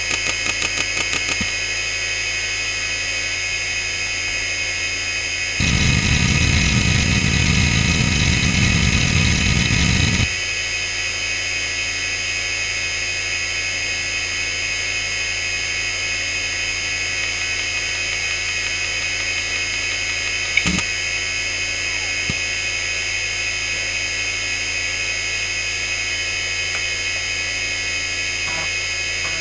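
A Fujitsu M2903SGM seven-platter 5400 rpm SCSI hard drive spinning with a steady high whine. Its heads tick rapidly in quick seeks for the first second or so, then seek loudly and densely from about six to ten seconds in, and give a single sharp click about twenty seconds in.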